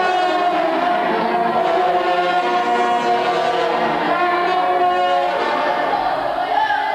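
Trombone ensemble playing long held chords, moving to a new chord a few times.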